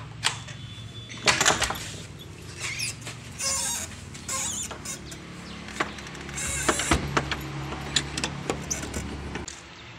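A door being shut and locked by hand: a string of clicks, knocks and short rattles from the latch and lock, over a steady low hum.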